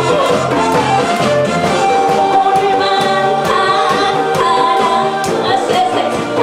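A woman's voice singing a Korean trot song into a microphone, over an amplified band accompaniment with a steady drum beat.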